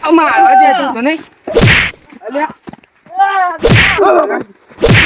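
A man being beaten: three sharp strikes about a second and a half to two seconds apart, with a man crying out and wailing between them.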